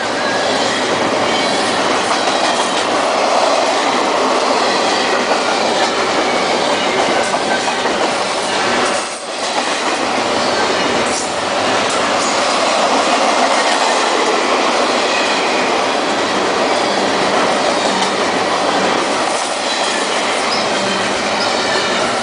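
Double-stack container train's well cars rolling past close by: a loud, steady rumble and clatter of steel wheels on the rails, with a brief dip about nine seconds in.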